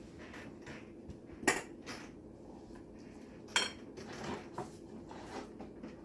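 Kitchen utensils and dishes clinking and knocking on a counter, with two sharper clinks about two seconds apart among lighter taps.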